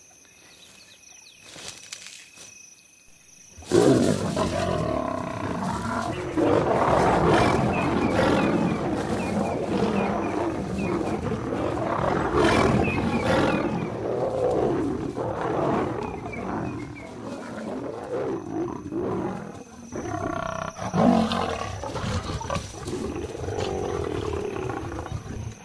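Faint insect chirring, then about four seconds in lions suddenly break into loud snarling and growling that goes on in rising and falling outbursts, the sound of a male lion attacking lionesses and being fought off.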